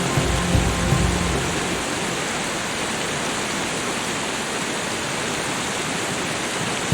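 Steady, even hiss of falling water, used as a relaxation nature soundscape. Soft low music tones fade out in the first two seconds, leaving only the water.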